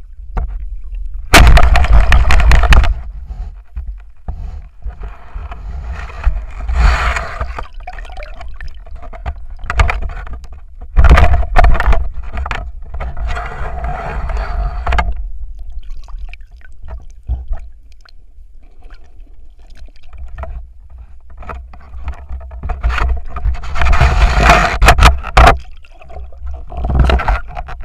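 Underwater sound picked up by a diver's camera: water rushing and gurgling over the microphone in several loud bursts, with sharp knocks and scrapes in between.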